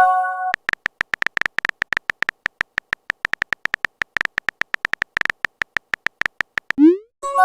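Simulated phone-keyboard typing clicks from a texting-story app: a fast, uneven run of short, high ticks lasting about six seconds. A brief chime of several notes opens it, and a quick rising blip followed by the same chime closes it near the end, the app's message tones.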